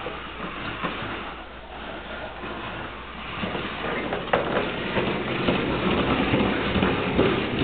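Hard plastic wheels of a Little Tikes toy wagon loaded with two small dogs rolling over a tiled floor, a continuous rumble with small knocks that gets louder about halfway through.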